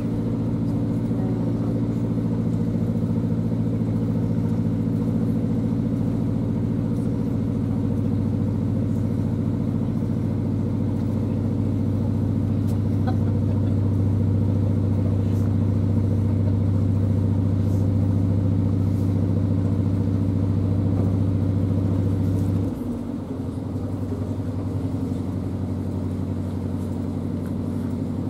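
Narrow boat's inboard engine running steadily while under way. About three-quarters of the way through it is throttled back: the engine note drops lower and quietens.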